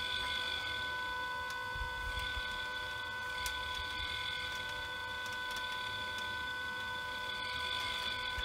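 Small electric motor of a homemade Tesla coil winder running steadily at 25% power, turning the coil form as wire is wound on: a steady whine with faint ticks.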